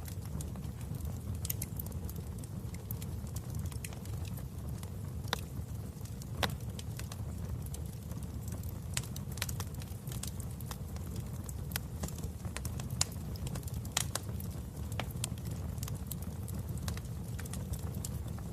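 Wood fire burning in a fireplace: a steady low rumble of the flames with irregular sharp crackles and pops, a few louder pops standing out.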